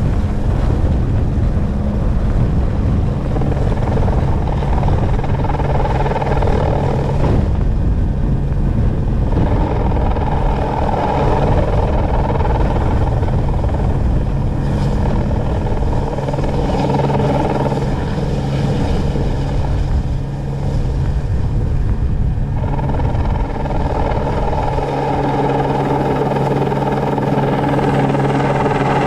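AStar helicopter's turbine engine and rotor running steadily at flying power while lifting off with a snowmobile slung on a long line.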